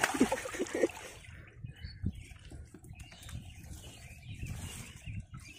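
A few short, low bird calls in the first second, then a faint low rumble with scattered small knocks.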